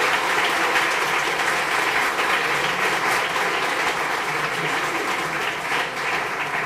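An audience applauding at the end of a talk, a steady patter of many hands clapping.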